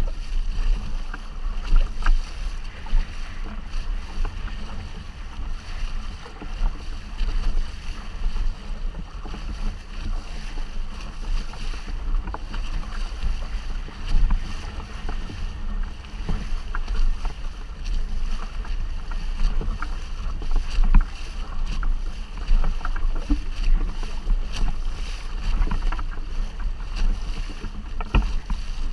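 Wind buffeting the camera microphone in uneven gusts with a low rumble, over the wash and splash of water along the hull of an inflatable boat under sail. A few small ticks and knocks come and go.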